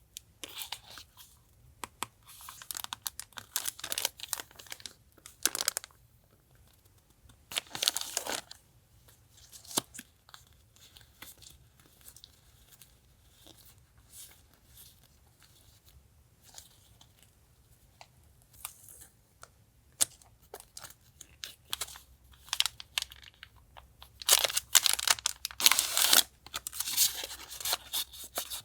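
Paper and plastic sticker packaging handled close up: rustling and tearing in several short bursts, the longest and loudest near the end, with small taps and clicks between.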